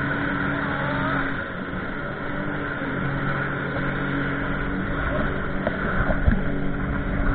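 Jet ski engine running at speed over the rush of water and wind. The engine note is steady, drops out briefly about a second and a half in, then comes back. A few low thumps come near the end.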